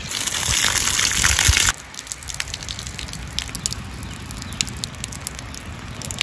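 Hand swishing and rubbing soaked rice in a steel vessel of water, the water sloshing loudly and cutting off suddenly about two seconds in. After that it is quieter, with light scattered clicks as the drained wet rice is handled.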